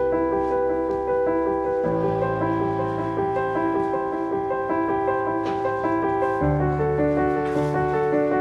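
Background instrumental music led by piano-like keyboard, with sustained chords that change about two seconds in and again near six and a half seconds in.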